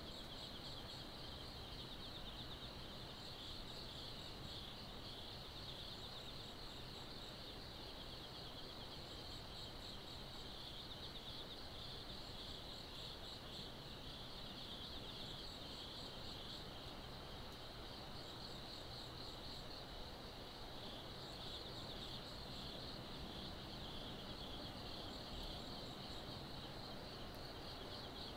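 Insects chirping in a steady, fast, pulsing trill, with a higher insect call repeating briefly every few seconds, over a faint low hum.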